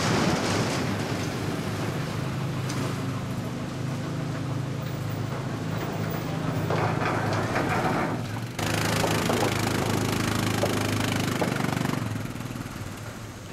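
Utility ATV engine running steadily at low revs under load as the quad climbs a steep ramp, with an abrupt break and jump in level about eight and a half seconds in.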